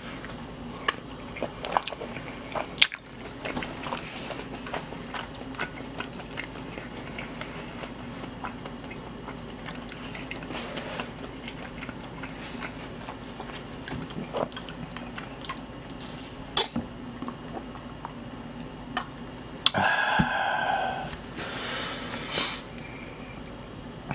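Close-miked chewing and biting of braised pig's trotters (jokbal), with many small wet mouth clicks over a steady low hum. A louder noisy stretch of about two seconds comes near the end.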